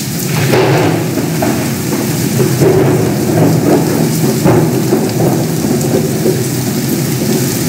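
Thunderstorm: steady heavy rain with thunder rumbling underneath.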